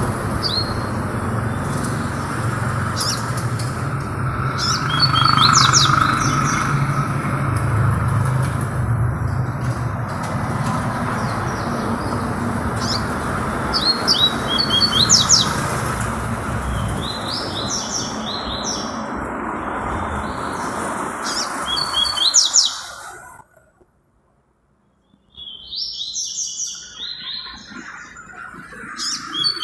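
A songbird singing short, repeated high whistled phrases over a steady low rumble. About 23 seconds in, the sound cuts out for a moment and another recording of a songbird singing begins against a quieter background.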